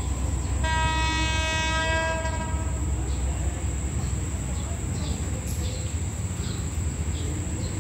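Train horn of an approaching commuter train sounding one long steady blast of about two seconds, then fading away, over a low rumble. Short repeated insect chirps follow in the second half.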